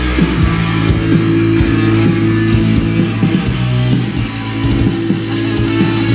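Loud guitar rock music played through three DIY ammo-can Bluetooth speakers driven together at full power.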